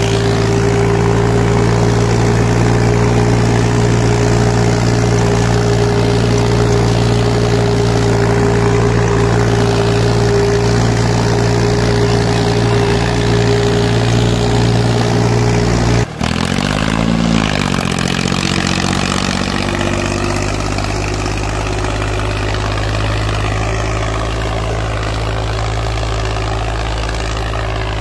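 Powertrac 445 tractor's 45 hp diesel engine running steadily under load, pulling an 18-disc harrow; its owner calls the engine and pump worn out. About halfway through the sound breaks off abruptly, dips and rises in pitch briefly, then runs on a little quieter, heard from farther away.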